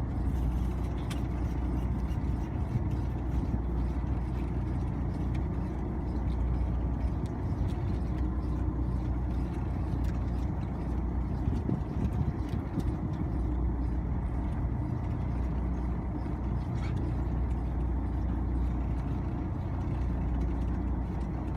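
Boat engine running steadily, an even low rumble with a faint steady hum above it.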